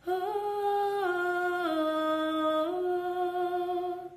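A woman's voice singing a cappella: a wordless held melody that steps down about a second in, dips lower, and climbs back near the end before stopping.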